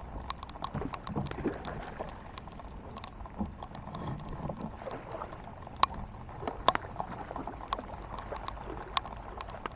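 Raindrops hitting a kayak, in irregular sharp ticks with a few louder drops, over faint steady water noise and occasional low knocks of the boat.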